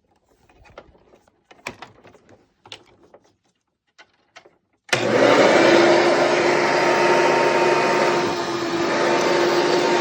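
Faint clicks and knocks of handling, then about five seconds in a 1999 Hoover Runabout Deluxe vacuum cleaner is switched on: its motor starts abruptly and runs steadily with a constant hum over the rush of air.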